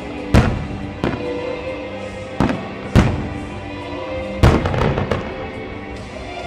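Fireworks shells bursting with sharp booms, spaced about a second apart, then a quick run of several bangs about four and a half seconds in, over background music.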